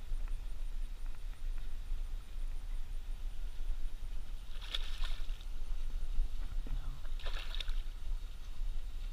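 A hooked largemouth bass splashing at the water's surface twice, about five seconds in and again about seven seconds in, over a steady low rumble.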